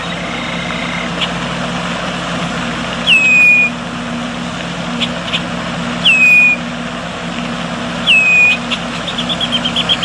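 Red-winged blackbird calling: three sharp whistles that drop in pitch and then hold, a few seconds apart, with scattered short chips and a quick run of chips near the end, over a steady low hum and hiss.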